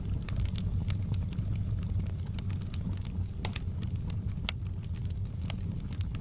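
Wood fire burning in a fireplace: a steady low rumble of flame with many sharp, irregular crackles and pops from the logs.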